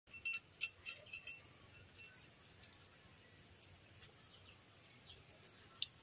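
Gulab jamun balls frying in oil in a wok, giving a faint steady sizzle, with a few sharp crackles in the first second or so.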